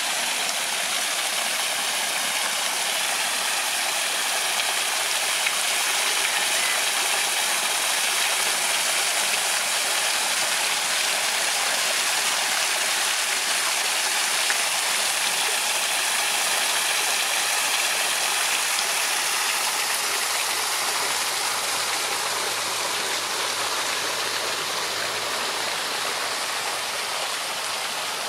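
Small garden stream running down a cascade of stacked stones, a steady splashing and trickling of water.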